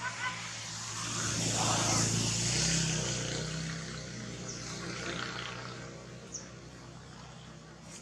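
A passing motor vehicle's engine, growing louder to a peak about two seconds in, then fading away, leaving a low hum.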